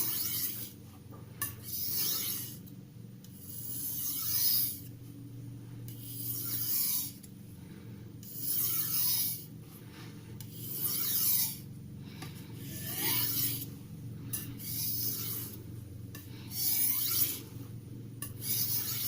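Steel knife edge stroked across a wet Thuringian natural water stone, a soft finishing stone, with only water and the weight of the blade: a light scraping hiss about once every two seconds, micro-beveling the edge.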